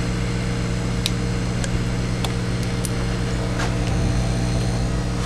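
Steady electrical hum from a CB radio bench setup, heard through the external speaker with the radio's TalkBack switched on, with a few faint clicks.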